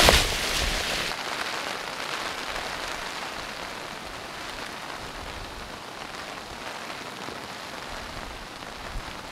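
Steady rain from an approaching hurricane, an even hiss. It is loud at first, drops within the first second, then eases slowly.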